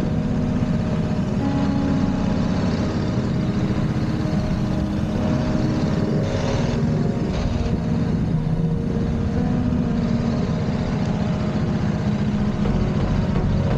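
BMW G 310 GS motorcycle's single-cylinder engine running at moderate speed, its note rising and falling a little with the throttle, over steady hiss from riding along a dirt trail.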